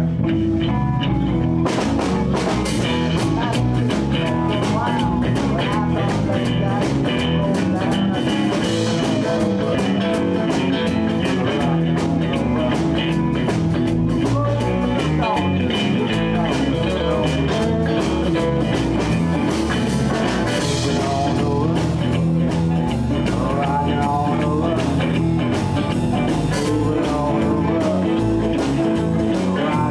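Live blues band playing a swing blues shuffle in E: electric guitars, bass and drum kit, with the drummer's cymbals coming in about two seconds in.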